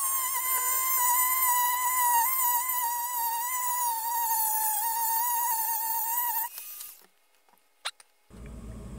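Rotary tool with a thin cut-off wheel running at high speed, a steady whine, cutting through the metal shaft of a potentiometer; the pitch sags slightly under load. It winds down and stops about six and a half seconds in, and a single click follows near the end.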